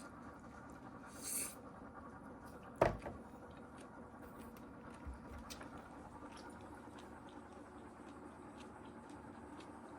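Quiet indoor room tone with a short rustle about a second in and a single sharp knock near three seconds, plus a few faint ticks.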